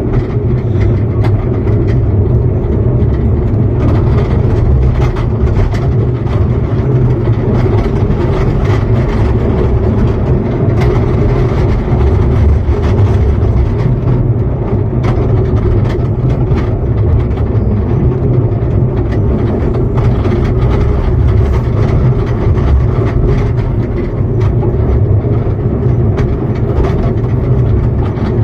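Ride-on miniature railway train under way: a steady, loud rumble of the coach running along the track behind its small locomotive, with faint clicks throughout.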